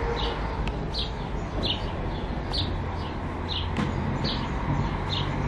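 A small bird chirping repeatedly, a short high falling note about once a second, seven times, over a steady background hiss.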